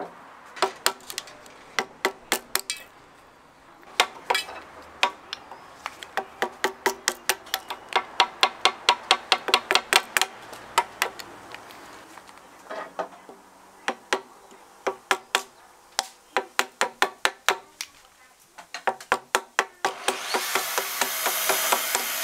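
Steel carpenter's hammer striking a Japanese chisel (nomi) to chop waste from a dovetail joint in hinoki (Japanese cypress): quick runs of sharp knocks, about four a second, with short pauses between runs. About two seconds before the end, a loud steady rushing noise starts.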